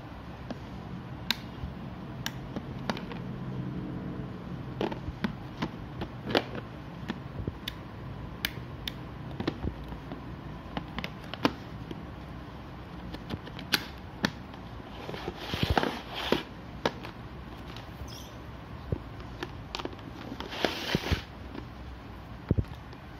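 Scattered clicks and knocks of hard plastic as a cable-reel extension socket is handled on a tile floor and its plug is worked out of the socket. Two short scraping rustles, one near the middle and one near the end.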